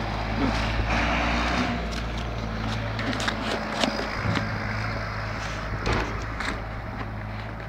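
International 1455 XL tractor's six-cylinder diesel, fitted with a Holset turbo, running at a steady note as it drives away, growing slowly fainter with distance. A few sharp light clicks sound over it.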